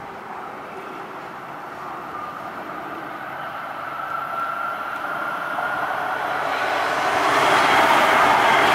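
LA Metro light rail train approaching and passing close by, growing steadily louder, with a faint high whine that rises slightly in pitch. The rush of the cars going by is loudest in the last couple of seconds.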